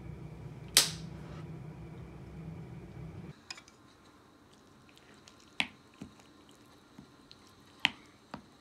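A steady low hum with one sharp click about a second in, then a quieter room where a wooden spoon clicks and taps against a ceramic soup bowl several times.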